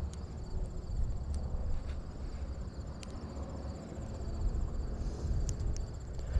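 Insects, crickets or similar, trilling steadily at a high pitch, over gusty wind rumbling on the microphone, with a few faint clicks.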